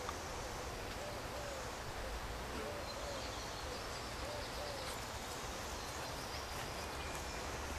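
Soft, low hooting calls of a bird, repeated about once a second, over a faint outdoor hiss.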